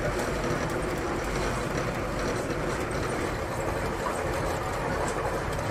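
Steady rumble and hiss of a VIA Rail passenger train under way, heard from inside the passenger cabin.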